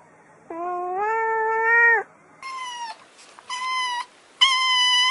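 A cat gives one long, drawn-out meow, then a kitten meows three times in a higher pitch, the last call the longest.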